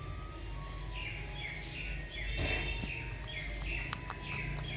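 Pet parrot giving a rapid series of short chirps, beginning about a second in and continuing to the end.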